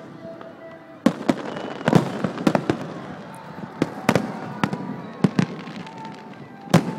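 Fireworks display bursting: an irregular run of sharp bangs that starts about a second in, several each second at times, with the loudest reports near the end.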